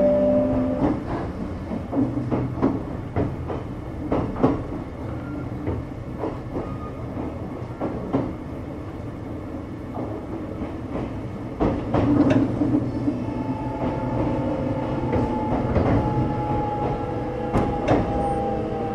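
Kintetsu 6620-series electric train running, heard from inside a car as it comes in to a station stop. Wheels click over rail joints above a low rumble, and a steady whine comes in about two-thirds of the way through and begins to fall in pitch near the end.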